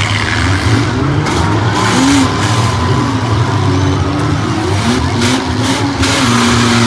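Several demolition derby cars' engines running and revving up and down together, their pitches rising and falling.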